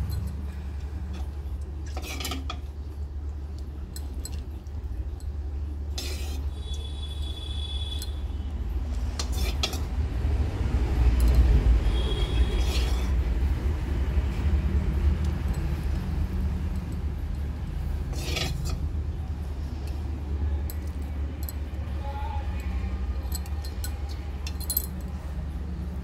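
Steel spoon and ladle clinking against a pan and plate as the tadka tempering is spooned over the dhokla, a handful of separate sharp clinks over a steady low hum. A short high ringing tone sounds about seven seconds in.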